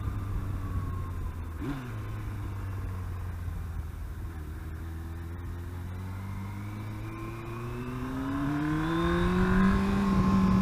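Yamaha R1 sportbike's inline-four engine running steadily at low revs, then revving higher over the last two or three seconds as the bike accelerates.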